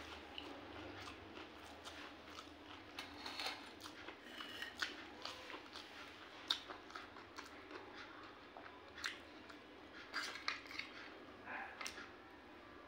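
Chewing and slurping of chow mein noodles close to the microphone, in irregular short bursts, with light clicks of a fork on a steel plate; the sharpest click comes about halfway through.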